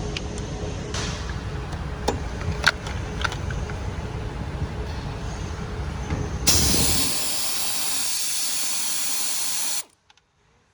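Steady low rumble with a faint hum and a few sharp clicks, then a loud steady hiss starts about six and a half seconds in and cuts off suddenly near the end.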